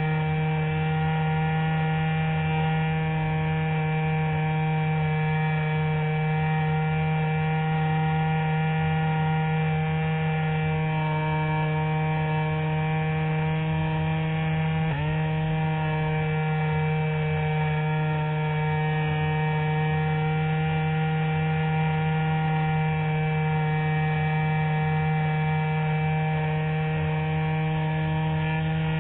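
Electric motor and propeller of a Spectra RC glider running at steady throttle in flight, picked up by a camera on the fuselage: a steady hum with a clear pitch and overtones. The pitch dips briefly about halfway through.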